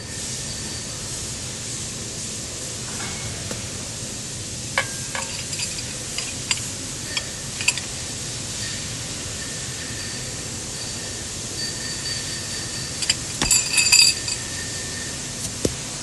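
Metallic clinks and taps of an Allen key and steel tube being handled against the turret station's steel parts, scattered through the middle and bunching into a louder run of ringing clinks near the end, over a steady hiss.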